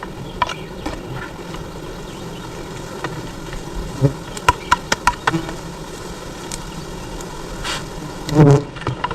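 A swarm of honeybees buzzing steadily, broken by scattered sharp knocks and a louder thump near the end.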